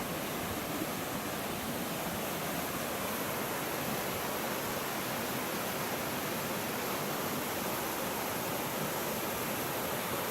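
A waterfall rushing, a steady, unbroken wash of falling water.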